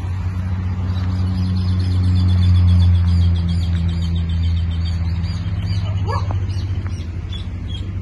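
Chevrolet Astra 2.4 16V four-cylinder engine running steadily through its exhaust, swelling slightly a few seconds in, with birds chirping over it.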